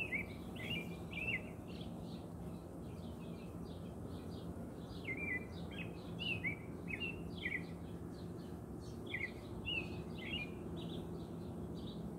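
Small birds chirping in quick, repeated short calls, over the steady low hum of honey bees flying around an open hive.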